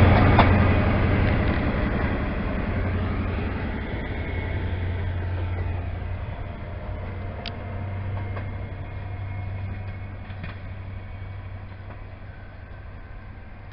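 Departing High Speed Train (InterCity 125) led away by its Class 43 diesel power car: a steady low engine drone and rail noise, fading as the train draws into the distance.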